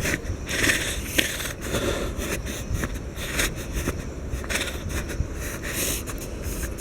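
Footsteps of a person walking at a steady pace, about two steps a second, each a short scrape, over a continuous low rumble on the microphone.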